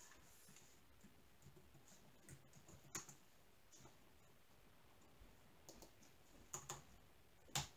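A handful of faint, scattered clicks from a computer keyboard and mouse, the sharpest about three seconds in, over near-silent room tone.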